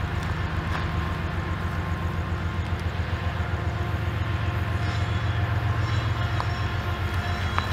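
Diesel locomotive engine running with a steady low throb, growing a little louder about halfway through.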